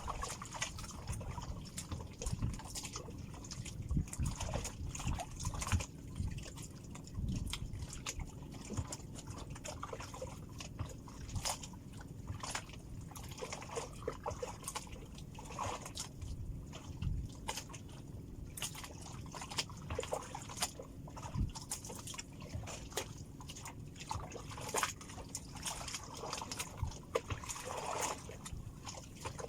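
Small waves lapping and sloshing against the hull of a small fishing boat on calm sea, with irregular little splashes and drips.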